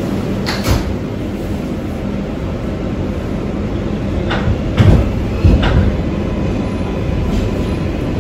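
Kawasaki R188 subway train standing at the platform with a steady low hum from its equipment; its doors click shut about half a second in, and a few heavy clunks come about five seconds in as it readies to depart.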